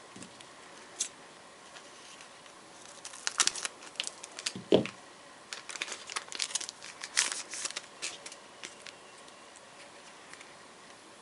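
Yu-Gi-Oh booster pack's foil wrapper crinkling and being torn open by hand, in scattered crackles that are busiest in the middle stretch, with one louder knock a little under five seconds in.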